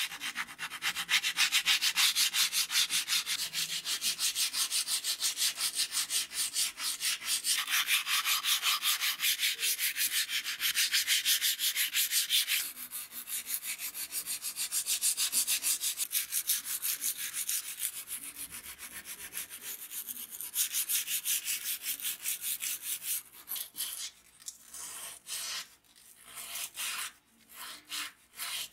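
Hand sanding the steel of a straight razor blade: a rasping hiss in quick, even back-and-forth strokes. The strokes thin out and grow quieter near the end.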